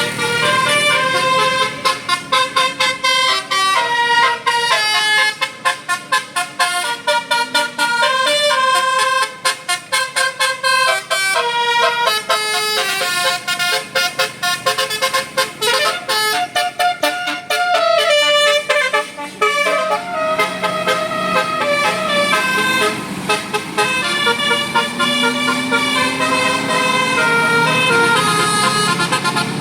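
Bus telolet basuri horn, a multi-tone musical air horn, playing a fast melody of short stepped notes that runs on without a break.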